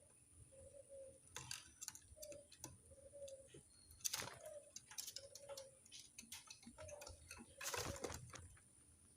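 Turtle dove cooing faintly in a steady series of short low coos, under scattered clicks and two louder crackles about four and eight seconds in.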